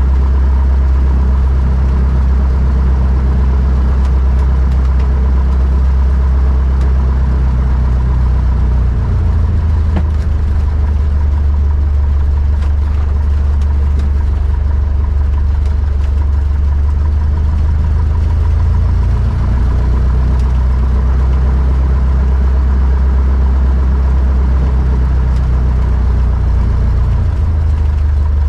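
Cessna 152's Lycoming O-235 four-cylinder engine and propeller running at low taxi power, heard from inside the cabin. The steady engine note shifts slightly in pitch about a third of the way in, again about two thirds in, and near the end.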